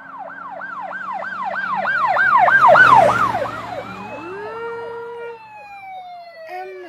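Toy fire truck's electronic siren sounding: a fast repeating wail, about three cycles a second, growing louder to a peak about three seconds in, then breaking into slower sweeps that slide down in pitch.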